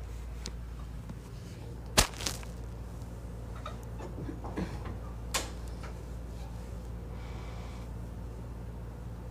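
A few sharp clicks and knocks over a steady low hum, the loudest click about two seconds in, with a brief soft rustle near the end, like objects being picked up and set down.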